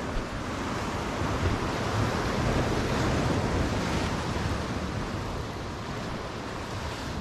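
Sea surf breaking and washing over the rocks of a breakwater, swelling louder about two to four seconds in, with wind on the microphone.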